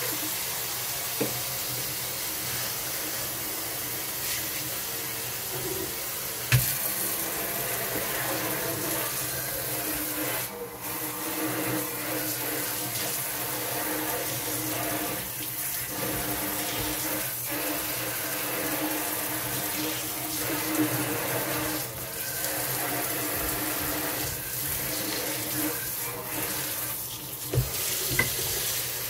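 Kitchen tap running into a sink, a steady rush of water, with a few knocks of dishes or pots.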